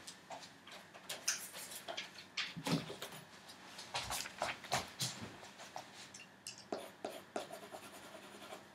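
Scattered scratches, rustles and light knocks of paper being handled and a Progresso woodless coloured pencil drawing on it.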